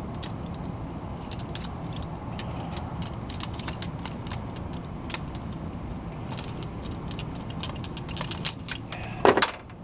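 Metal sockets clinking and rattling as they are picked through in a socket set, over a steady low hum, with a louder clatter near the end.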